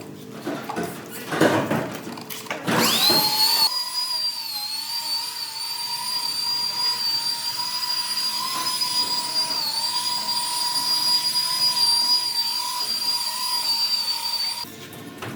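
A handheld electric power tool's motor spins up about three seconds in and runs at a steady high-pitched whine, dipping briefly in speed a couple of times, then stops shortly before the end. A few knocks come before it starts.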